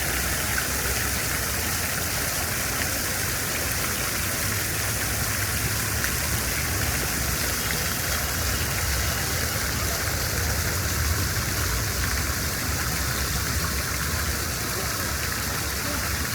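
Steady hiss of rain over a low rumble of city traffic, unchanging throughout.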